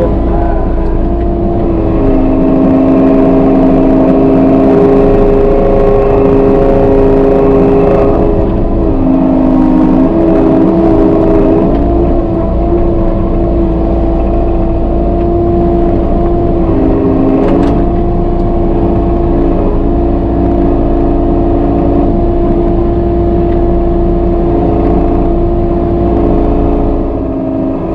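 Kubota KX080-3 excavator's diesel engine and hydraulics running under load while digging, heard from inside the cab. A steady drone whose pitch steps up and down several times as the boom and bucket move, with a single click about two-thirds of the way through.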